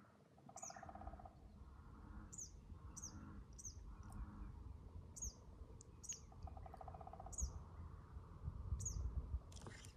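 Faint birdsong: a bird repeating short, high, downward-sliding chirps about every half second to a second, with a lower buzzy trill twice. A low rumble runs underneath, and a rustle comes near the end.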